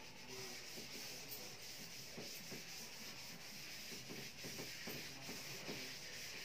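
Chalkboard eraser rubbed over a chalkboard, wiping off chalk writing: a faint, steady scrubbing hiss.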